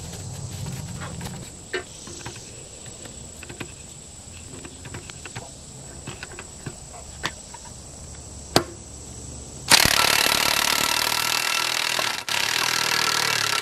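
Lever-action grease gun pumped into the kingpin's grease fitting, with faint scattered clicks. About ten seconds in, a cordless power tool starts suddenly and runs loud and steady in two long bursts.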